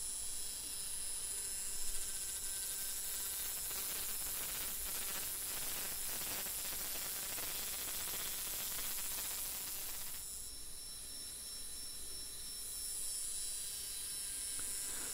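Milling machine spindle running a single-point high-speed steel cutter through brass as it cuts the teeth of a clock mainspring ratchet, a steady machining whine and hiss. The cutting noise is heavier from about two seconds in and eases about ten seconds in.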